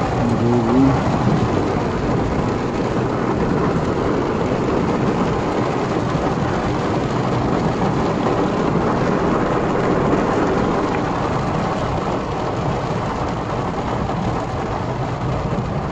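Heavy rain drumming on a car's roof and windscreen, heard from inside the cabin over the steady running and road noise of the car; a dense, even hiss and rumble that holds at one level throughout.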